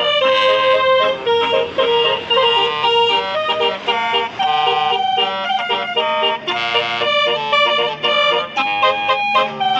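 Basuri telolet multi-tone bus air horn with yellow trumpets, playing a melody: a fast run of loud held notes, the pitch jumping from note to note every fraction of a second.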